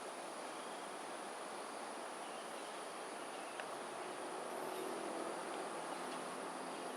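Gusty wind rushing steadily, with a constant high whine underneath. From about four seconds a low engine hum comes in and slowly grows louder.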